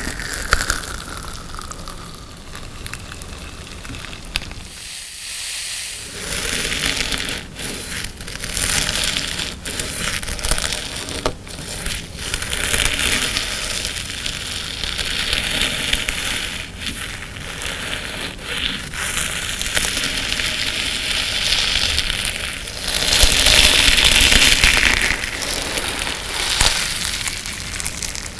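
Hands squashing and stretching a colored-sand slime, making a continuous gritty crackle with many small pops. It goes quiet briefly about five seconds in and grows louder for a couple of seconds near the end.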